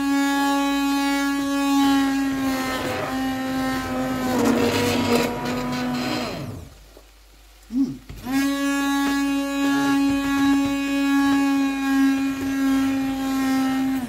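Immersion (stick) blender running with a steady motor whine as it purées cooked callaloo greens in a stainless steel pot. Its pitch dips slightly about three to five seconds in. It cuts out about six and a half seconds in, gives a short blip, then runs steadily again.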